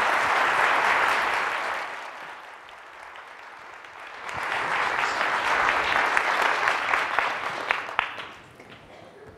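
Audience applauding. The clapping eases off about two seconds in, swells again after about four seconds and dies away near the end.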